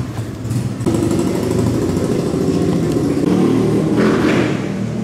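A motor vehicle's engine running close by, louder from about a second in, with a rise in noise about four seconds in.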